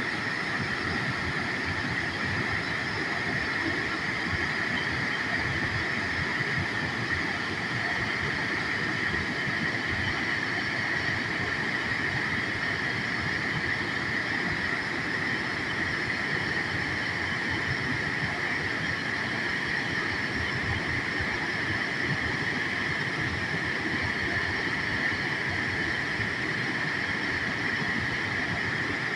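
Waterfall, water rushing and splashing in a steady, unbroken noise.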